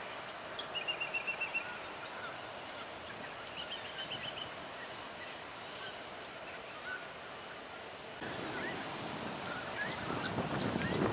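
Birds calling in dry bushland: a quick run of repeated high notes about a second in and another about four seconds in, over a steady fast high ticking. From about eight seconds in the background grows louder and noisier, with scattered chirps.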